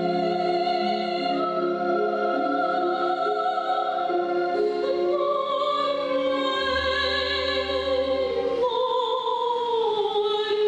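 A female opera singer singing long, held notes with vibrato in full classical voice, the melody stepping down about halfway through and again near the end, over a quieter instrumental accompaniment.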